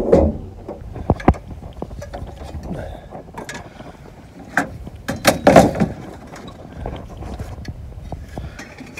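Loose metal car parts from a 1965 Mustang being handled and set down, giving several sharp clanks and knocks, loudest in a cluster a little past the middle.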